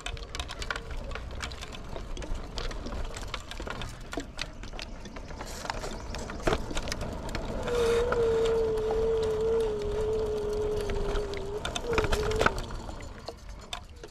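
Electric kick scooter under way on rough asphalt: a steady low rumble of wind and tyres with scattered clicks and rattles. About halfway through a steady whine from the scooter comes in for a few seconds, sliding slightly lower, and returns briefly near the end.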